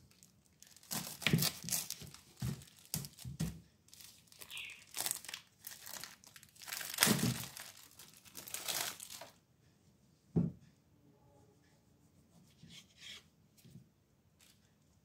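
Plastic wrapping crinkling and tearing as it is cut open and pulled off a block of tempeh, for several seconds. A single knock follows about ten seconds in, then a few faint ticks.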